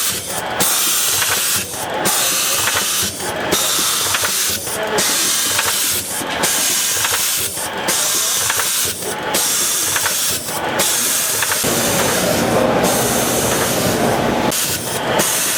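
Colombi C413T in-line CNC spring coiling machine running: a steady hiss that breaks off briefly about every second and a half, in time with the machine's cycle. A lower rushing noise joins in about twelve seconds in.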